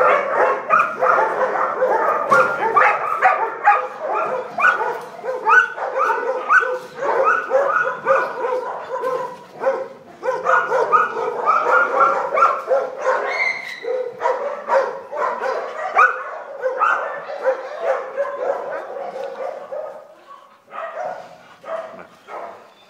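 A puppy yipping and whining in a long run of short, rapid calls, several a second, growing fainter and sparser near the end.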